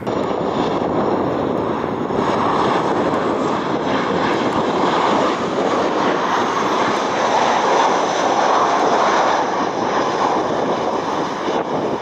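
Jet airliner engines, a loud steady rushing noise that holds without clear rise or fall.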